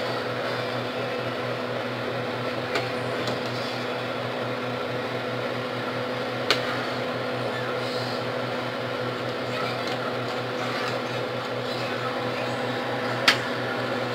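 A steady electric hum, with a few sharp clinks of a metal ladle against a stainless steel stockpot as simmered vegetables are stirred and lifted.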